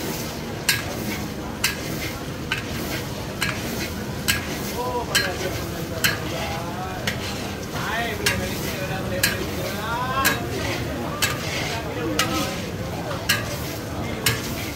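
Rice vermicelli sizzling in a large kawah wok while a metal spatula stir-fries it, scraping and striking the wok about once a second.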